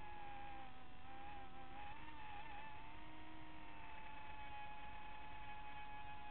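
Buzzing whine of a small drone's electric propeller motors, several tones together, the pitch wobbling in the first few seconds and then holding steady.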